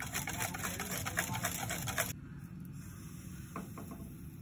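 Batter being beaten quickly in a metal mixing bowl, the utensil clicking and scraping rapidly against the bowl. About two seconds in it stops abruptly, leaving a quieter steady low hum with a faint clink.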